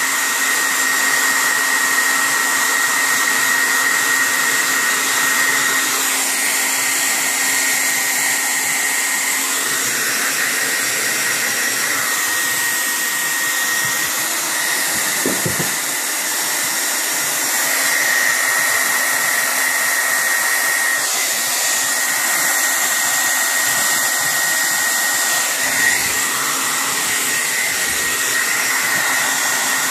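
A hair dryer running steadily throughout: an even, loud rush of air with a constant high whine.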